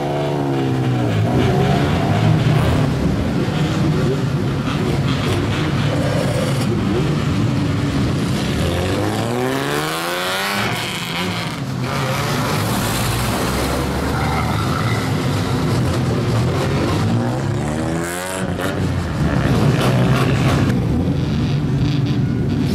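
Old lowered Nissan sedans, including Skylines, drive off one after another, their engines revving loudly through modified exhausts. The engine note sweeps up and down several times, near the start, around the middle and again later, as each car pulls away.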